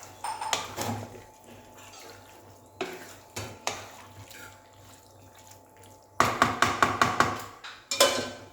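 A spoon stirring chicken pieces in a kadai of onion-tomato masala, scraping and knocking against the pan, with a quick run of knocks about six seconds in.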